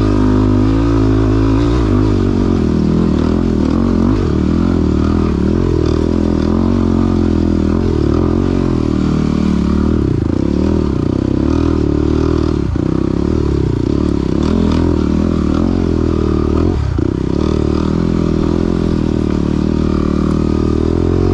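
Yamaha WR250R's single-cylinder four-stroke engine running under way, its pitch wavering up and down with the throttle. There are two brief breaks in the engine note, in the second half.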